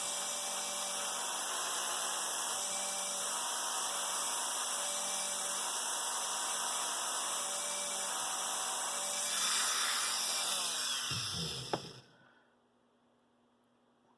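Small high-speed rotary tool running steadily at one speed, then cutting off suddenly about twelve seconds in.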